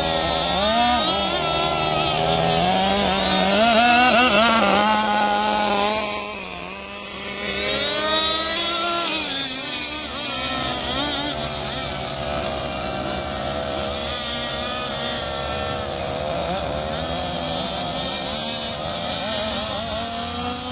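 Small two-stroke engine of a fuel-powered radio-controlled boat running at speed, a whine that rises and falls in pitch with the throttle. It is loudest about four seconds in, drops briefly around seven seconds, then runs steadier.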